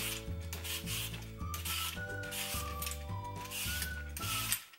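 A wide Y-peeler scraping the skin off a raw sweet potato in short repeated strokes, about two a second, over background music with a steady bass line and melody; the music stops near the end while the scraping goes on.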